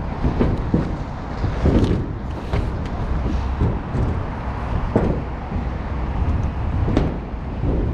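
Wind buffeting the microphone in a steady low rumble over the hum of city traffic, with a few scattered knocks and taps.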